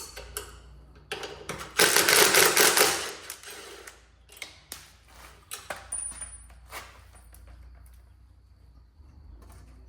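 Rapid mechanical clatter of a tool working a bolt on a motorcycle for about a second, starting about two seconds in, followed by scattered metal clicks and clinks of tools and hardware.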